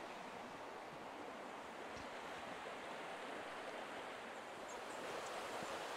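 Steady rush of a small stream's running water, growing slightly louder in the last second.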